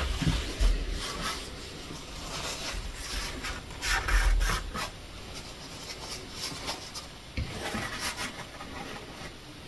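Short hissing bursts of silicone lubricant sprayed from an aerosol can through its straw onto a door hinge, the strongest about four seconds in, with rubbing and rustling handling noise and a few low thumps.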